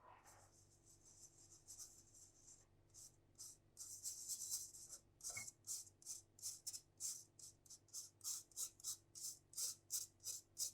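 Flour and cocoa powder being sifted through a fine mesh sieve: a scratchy hiss that becomes regular shaking strokes, about three a second, in the second half.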